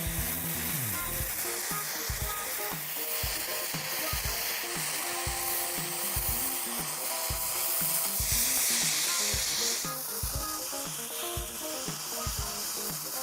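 Background music with a steady bass beat, mixed with a continuous hissing, scraping noise that grows louder about eight seconds in.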